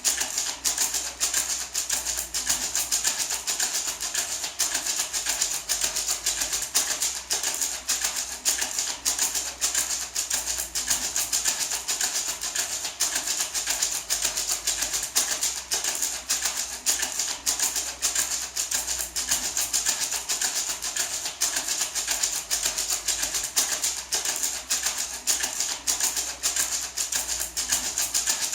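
Handmade gourd maraca shaken in a quick, steady rhythm: a continuous dry rattle with no pauses.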